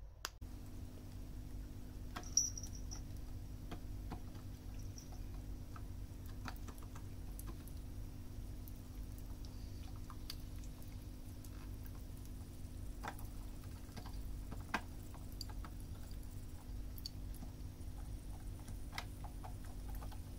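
Ice cubes crackling and popping as they melt in a pet water fountain: scattered, irregular sharp ticks over a low steady hum.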